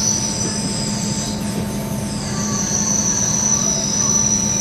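Machine tool cutting a trunnion shaft: a steady, high-pitched squeal from the cut over a steady motor hum. The squeal dips and wavers about two seconds in, then settles again.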